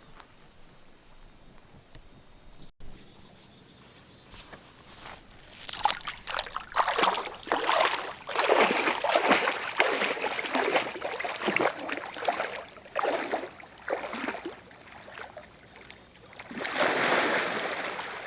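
Paddle strokes in lake water from a canoe or kayak: after a quiet start, repeated splashing and sloshing strokes come about once a second, with a longer surge of water near the end.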